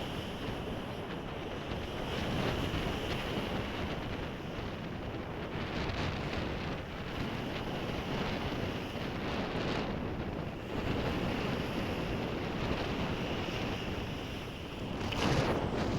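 Sea waves washing and breaking on the shore, swelling and easing every few seconds, with wind buffeting the microphone.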